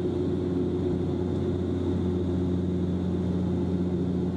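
Steady drone of a Bombardier Dash-8 Q400's turboprop engines and propellers inside the passenger cabin in flight: a low, even hum with steady overtones.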